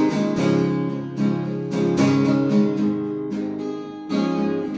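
Acoustic guitar strummed in a steady rhythm, a fresh chord roughly every three-quarters of a second.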